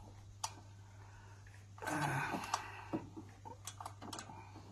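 Socket wrench on an extension doing up a 10 mm bolt that holds an earth strap and dipstick mount to the engine's cylinder head: scattered, irregular metal clicks and knocks, with a louder noisy rush lasting under a second about two seconds in.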